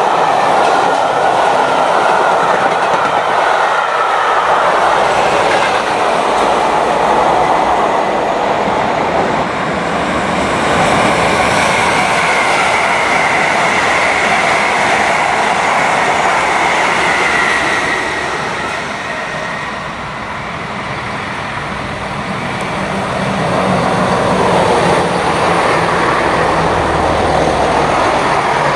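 Trains passing at speed: first a rake of maroon passenger coaches rushing by with wheels clattering over the rail joints. Partway through the sound changes to an electric train passing, and near the end a diesel multiple unit passes close by, its engines humming under the wheel noise.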